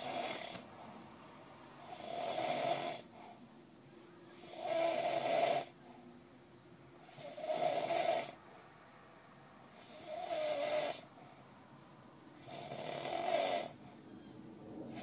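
A sleeping man snoring in a regular rhythm: five long snores about two and a half seconds apart, each lasting about a second.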